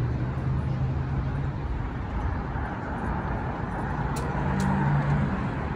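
Street traffic: cars driving past on a city road with a steady rush of tyre and road noise. One vehicle's engine hum passes early on, and another swells up about four to five seconds in.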